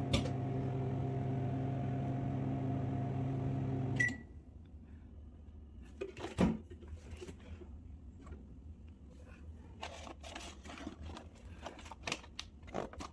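Samsung microwave oven running with a steady hum that cuts off about four seconds in with a short beep. A single knock follows a couple of seconds later, then light clicks and rustles.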